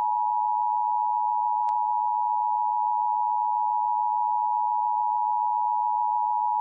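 Emergency Alert System attention signal: a steady two-note tone (853 Hz and 960 Hz together) held unbroken, with a faint click about two seconds in. It is the alerting tone of an EAS Required Monthly Test, sounded between the coded data bursts and the spoken test message.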